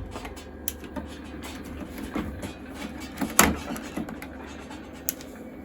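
Scattered plastic clicks and knocks as the iMac G3's CD drive tray is pushed and handled but will not slide in, the sharpest knock about halfway through, over the running computer's steady low hum.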